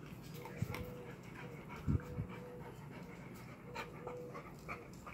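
A dog panting, with the small clicks and crunches of another dog eating dry kibble from a steel bowl, and two low thumps in the first two seconds.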